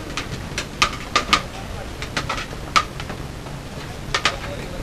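Irregular sharp clinks with a short ring, bunched several to a second at times, as scoops and boxes knock against a large steel tray while biryani is portioned out. Voices chatter underneath.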